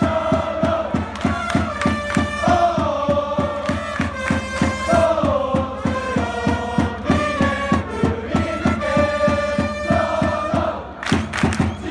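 Chiba Lotte Marines cheering section performing a player fight song: trumpets play the melody over a steady drum beat of about four strikes a second, with the crowd chanting along. Shortly before the end the song breaks off into crowd shouts.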